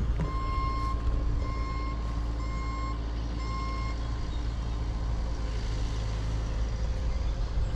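Vehicle backup alarm beeping four times, about once a second, over a steady low rumble.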